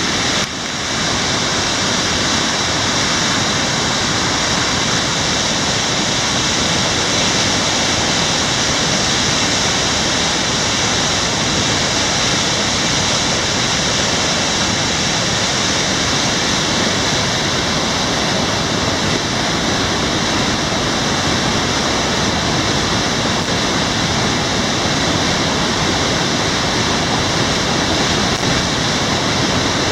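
Heavy rain falling, a loud steady hiss of water.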